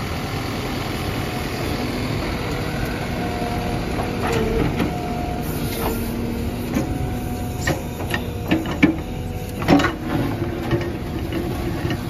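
Tata Hitachi Shinrai Prime backhoe loader's diesel engine running steadily as the backhoe digs. In the second half come scattered knocks and scrapes of the bucket in soil and stones, the sharpest about ten seconds in.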